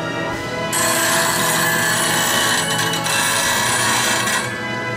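Woodturning gouge in a sharpening jig ground against a spinning CBN wheel on a WEN low-speed bench grinder: a steady grinding hiss starts about a second in and stops shortly before the end.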